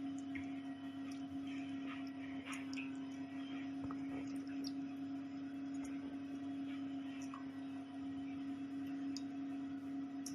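A steady electrical-sounding hum, with faint scattered small clicks and taps over it.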